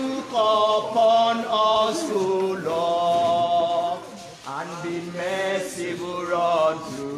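People singing a slow, chant-like song with long held notes, a man's voice most prominent. It breaks off briefly about four seconds in, then carries on.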